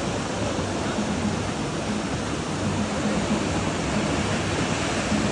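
Steady wash of ocean surf breaking on a beach, an even rushing noise with no distinct events.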